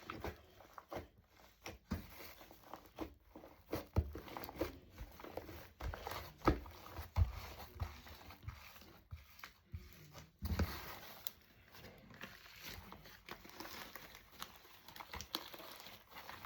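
Fluffy shaving-cream slime being kneaded and stretched by hand: faint, irregular squishes and small sticky pops and clicks.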